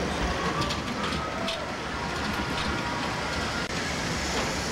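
Amusement-ride vehicle rolling along its track: a steady rumble with a few brief rattles and clicks in the first second or so.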